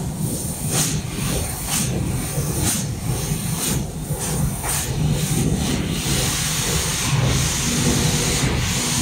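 Bystronic Bysprint 3015 laser cutter, retrofitted with a 3 kW fiber laser source, cutting sheet steel: a steady low hum under short bursts of hiss about twice a second, which merge into a continuous hiss about six seconds in.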